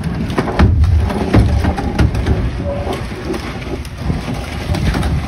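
Wind buffeting the microphone: a loud, gusty low rumble, with a few sharp knocks mixed in.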